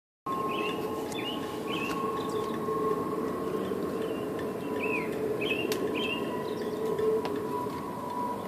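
A steady drone from the sky made of two held tones, one about an octave above the other, over a rushing background, with birds chirping over it in short repeated calls.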